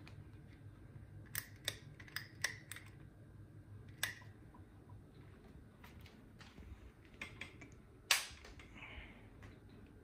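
Sharp clicks and knocks from hands working on a ceiling fan's brass blade irons and wooden blades while it is switched off: a quick cluster about one to three seconds in, and the loudest knock about eight seconds in. A faint low hum runs underneath.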